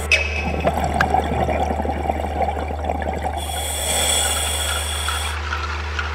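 Underwater sound picked up through a camera housing: a steady low hum with continuous crackling. About three and a half seconds in, a scuba regulator's exhaled bubbles gurgle for about two seconds.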